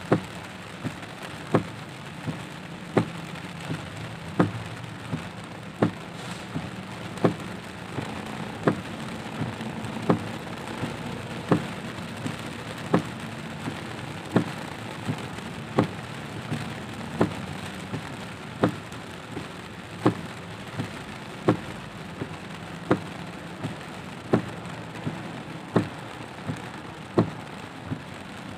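Heavy rain drumming on a car's windshield and roof, heard from inside the cabin, over a low engine hum. The windshield wipers knock at a steady rhythm, a louder knock about every second and a half with a softer one between.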